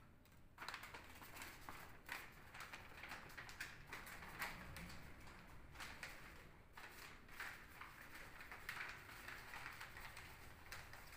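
Brown wrapping paper crinkling and rustling as it is folded by hand into a cone, with many small crackles throughout, beginning about half a second in.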